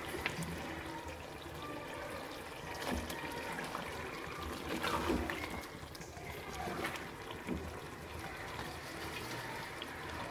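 Chicken in a tomato-yogurt gravy simmering in a metal pot, with a spatula stirring and scraping through it now and then; the stirring is louder at about 3, 5 and 7 seconds in.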